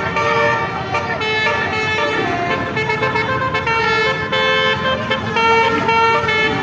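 Indonesian bus 'telolet' multi-tone horn of the Basuri type playing a melody. Several notes sound together and change in quick steps, with short breaks between phrases.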